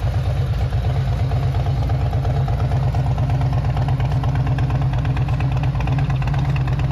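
Harley-Davidson Road Glide's Milwaukee-Eight 117 V-twin idling steadily, with an even low loping pulse from the exhaust.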